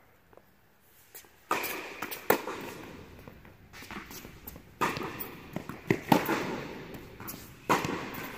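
Tennis rally on an indoor hard court: a series of sharp pops as the ball is struck by rackets and bounces on the court, each followed by an echoing tail in the hall.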